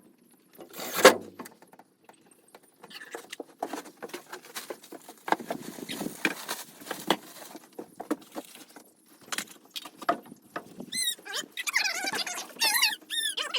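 Light rustling and clattering of things being handled, then a run of short, high chirping calls near the end from chickens.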